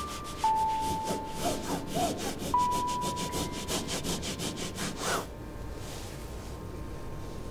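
Quick, repeated strokes of a drawing tool scratching and rubbing on paper, stopping suddenly about five seconds in. A few held single notes of background music sound over them.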